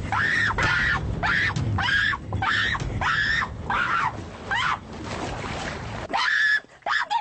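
A person shrieking and yelling in a rapid string of short, high-pitched cries, about two a second, over the low rumble of a boat's motor. The rumble cuts off suddenly about six seconds in, followed by one more cry.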